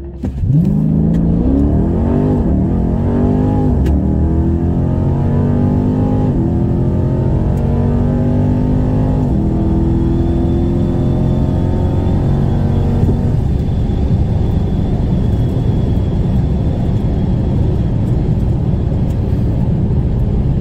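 Car engine at full throttle through a quarter-mile drag pass, heard from inside the cabin. It launches at the start and climbs in pitch through four gear changes, the pitch dropping at each shift. About two-thirds of the way in the throttle lifts, and the car coasts on with a steady rumble of road and wind noise.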